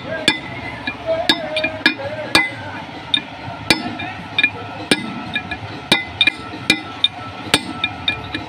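Steel drift rod being knocked against the wheel-bearing race inside a cast-iron brake drum hub: repeated sharp metal-on-metal knocks, about one every half second to second, each ringing briefly.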